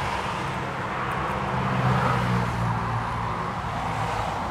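Road traffic: a motor vehicle passing on the road, its engine hum and tyre noise swelling about two seconds in and then easing off.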